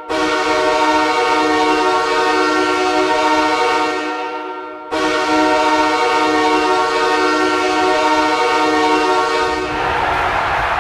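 Los Angeles Kings arena goal horn blowing two long chord blasts of about five seconds each, the second starting abruptly as the first fades. Near the end the horn stops and a loud rushing noise takes over.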